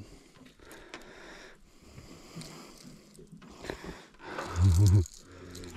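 Faint hiss and light handling noise, then a man's brief wordless vocal sound, like a grunt, about four and a half seconds in.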